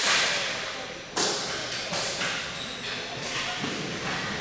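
Ball hockey play in a large concrete-floored arena: several sharp cracks of sticks and ball, one at the start, one about a second in and two around two seconds, each echoing through the hall.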